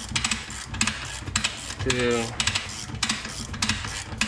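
Ratcheting clicks as the Wayne Dalton TorqueMaster Plus torsion spring is wound with a ratchet wrench, coming in irregular clusters as each stroke adds spring tension.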